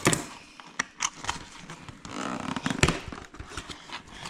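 Tape being peeled off a cardboard product box by hand, with irregular sharp clicks, knocks and a longer scraping, crackling stretch of the tape pulling away.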